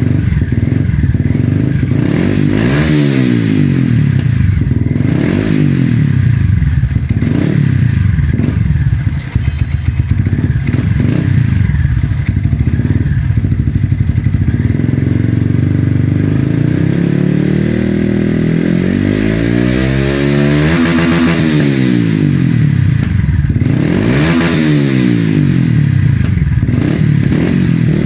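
Yamaha FZ150 (Vixion) single-cylinder engine revving through an Akrapovic Titan carbon exhaust. The throttle is blipped again and again, and about two-thirds of the way through comes one longer rev that climbs high and falls back.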